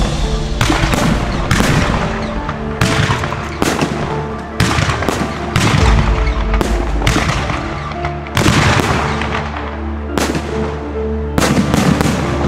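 Aerial firework shells bursting in quick succession: more than a dozen sharp bangs about half a second to a second apart, with music playing underneath.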